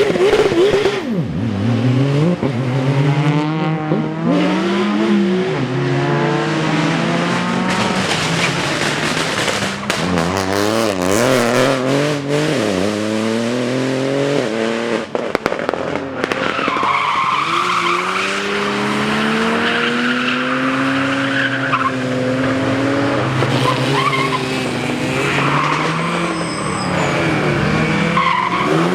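Rally car engine driven hard through a drift: revs climb and drop repeatedly with gear changes and throttle lifts, with fast wavering in places, and the tyres squeal for several seconds in the middle as the car slides.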